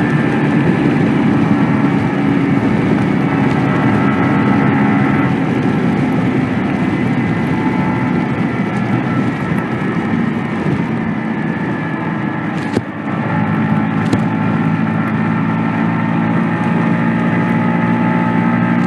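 Yamaha YZF-R125's 125 cc single-cylinder four-stroke engine running through its stock exhaust with a fairly steady note. About two-thirds of the way through there is a brief dip in level with a couple of clicks, and then the engine holds steady again.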